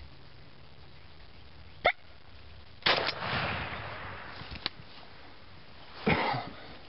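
A single shotgun blast about three seconds in, the report dying away over a second or more, as a turkey is shot. It is preceded by a short sharp click, followed by a small click, and near the end by another loud, short burst.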